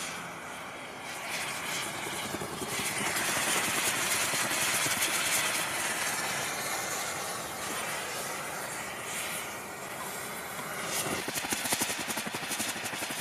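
Molten metal hissing and sizzling inside a hollowed-out watermelon as the wet flesh flashes to steam, with crackling spits near the end.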